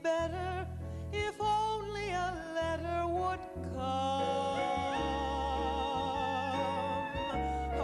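A woman singing with a small band led by piano: a few short sung phrases, then one long held note with vibrato over sustained chords for the last four seconds or so.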